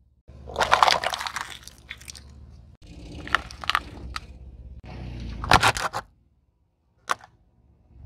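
Car tyre rolling slowly over hard plastic objects and crushing them: several bursts of crunching and sharp cracks over a low tyre rumble, with a short pause near the end before one last crack.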